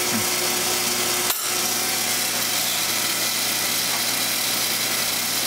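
Steady rushing hum of blacksmith-shop machinery running, with one sharp click a little over a second in.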